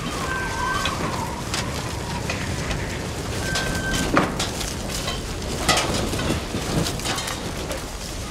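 Strong storm wind of an approaching tornado: a steady rushing noise with scattered sharp knocks and rattles, the loudest about four seconds in and again near six seconds.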